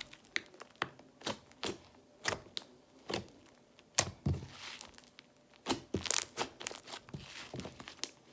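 Green slime with foam balls being squished and poked by hand, giving irregular crackling clicks and wet pops.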